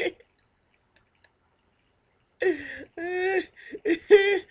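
About two seconds of dead silence, then a high-pitched human voice making several short, pitch-bending sounds without clear words.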